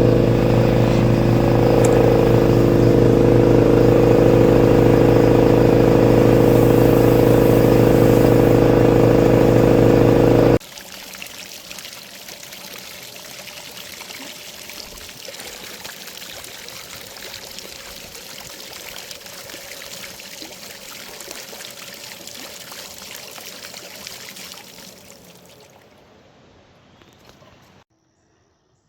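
Air compressor's electric motor running loud and steady, cutting off abruptly about ten seconds in. Then a quieter sound of running water that fades away near the end.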